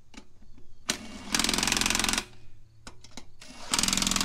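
Ridgid cordless 1/2-inch impact wrench hammering lug nuts tight through a 100 ft-lb torque stick. It runs in short bursts, one of about a second in the middle and another starting near the end. Between them are a few clicks of the socket being set onto the next nut.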